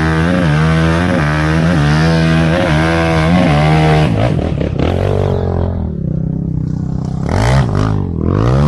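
Honda sport quad's engine revved hard in quick pulses for about four seconds as its rear tyres spin and throw sand, then dropping back before two more rising revs near the end.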